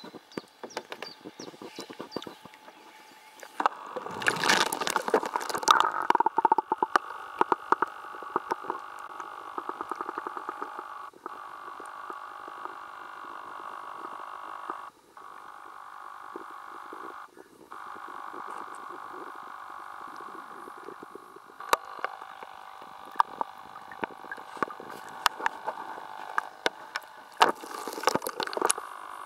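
A steady chorus of calling frogs, with water splashing and knocking close to the camera, loudest about four to six seconds in. The chorus breaks off briefly a few times.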